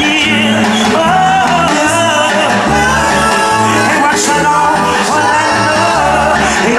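Live reggae band playing a song, with a bass line, keyboards, guitar and cymbals, and a male voice singing with it.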